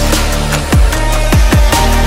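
Electronic background music with a steady beat: deep kick drums that drop in pitch, a continuous heavy bass and ticking hi-hats.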